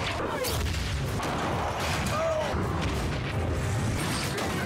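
Action-film sound effects of armoured cyborgs crashing and skidding on a metal race track: repeated heavy metallic impacts and clanks over a dense low rumble, with a short squeal about two seconds in.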